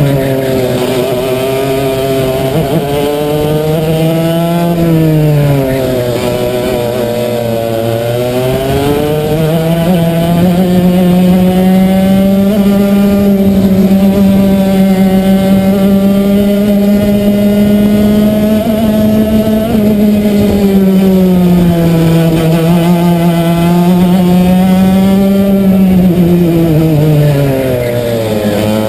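Racing kart engine heard from on board, its pitch dropping as the kart slows about five seconds in and again near the end, then climbing back and holding high through the long stretch between.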